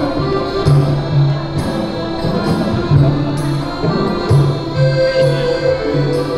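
Music: held instrumental notes over a regular beat.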